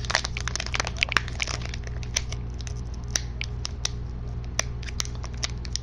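Foil booster-pack wrapper crinkling and crackling in the hands as it is worked at and torn open, a stiff, hard-to-open pack.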